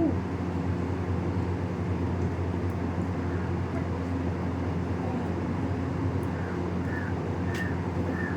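Steady low mechanical hum, with a few faint short high chirps and a single sharp click near the end.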